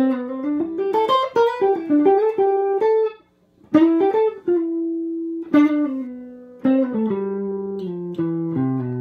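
Fender Telecaster electric guitar playing a single-note jazzy lead lick, sliding up into notes from a fret below and leaning on the major seventh. Quick runs, a brief break about three seconds in, then longer held notes.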